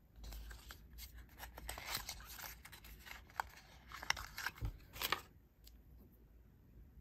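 Small paperboard cosmetic box being handled and opened: scratchy rustling and scraping of the carton, with several sharp clicks in the last couple of seconds as the balm stick is slid out. The handling stops about five seconds in.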